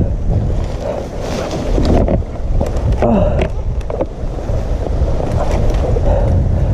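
Rustling brush and handling noise as a fallen dirt bike is hauled upright through undergrowth, with the rider's short grunts and breathing, over a steady low rumble on the helmet-camera microphone.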